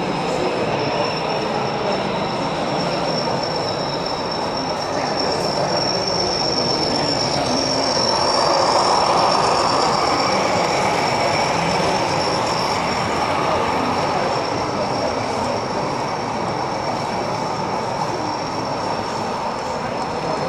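Model diesel locomotive running along its track, with a thin high steady whine over a continuous rumbling hum, growing louder about halfway through as it comes closer.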